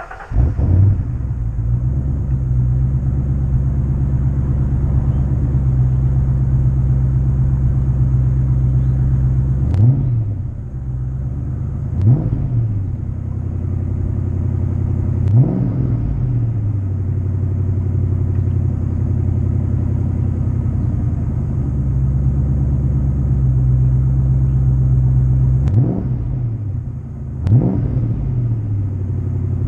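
1993 Foxbody Mustang's stock 5.0 V8 idling steadily through a freshly installed Pypes cat-back exhaust. Quick throttle blips make the note rise and fall: three about a third of the way in and three more near the end.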